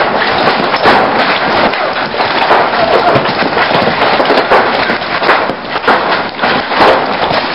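Large hailstones, some softball-sized, pelting down: a dense, loud clatter of sharp cracking impacts over a steady rushing noise.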